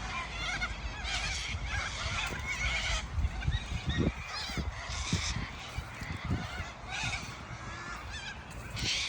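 A large flock of cockatoos calling, many screeches and squawks overlapping without a break. Wind rumbles on the microphone underneath.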